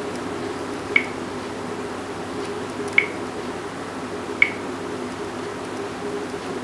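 Three short, high-pitched pips, the second and third closer together than the first two, over a steady low hum.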